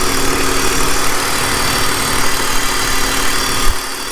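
BMW E46 straight-six engine idling steadily after a repair for a rough idle, which the owner says is now running good with no issues. A single thump near the end.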